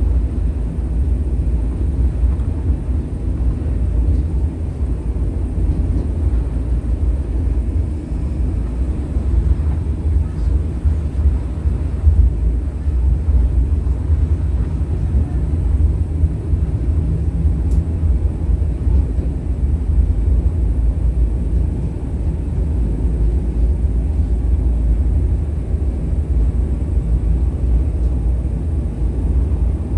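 English Electric Millennium Car tram running, heard from inside the car: a steady deep rumble with no clear change in pitch.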